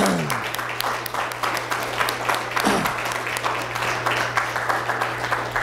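Audience applauding, a dense patter of many hands clapping for a few seconds over a steady low hum.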